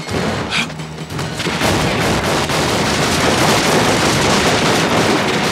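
Action film soundtrack: a music score under a dense, continuous volley of gunfire that builds about a second and a half in and keeps going.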